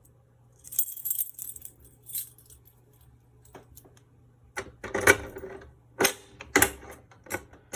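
A ring of keys jangling, then several sharp clicks and clunks as a key is worked in a fire alarm pull station's reset lock.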